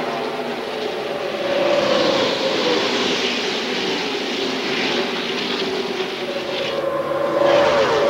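A pack of NASCAR Winston Cup stock cars running flat out, their V8 engines droning together. The engine pitch falls as cars pass, once about two seconds in and again near the end, where it grows louder.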